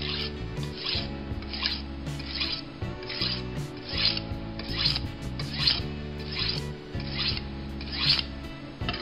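Kitchen knife blade stroked along a white aluminium oxide (corundum) sharpening stone: repeated rasping scrapes, about one and a half strokes a second. Background music plays underneath.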